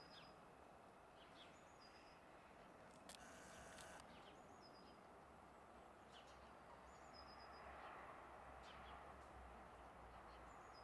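Near silence, broken by a small bird chirping faintly about five times, each call a quick downward flick ending on a brief high held note, a couple of seconds apart, over a faint low rumble.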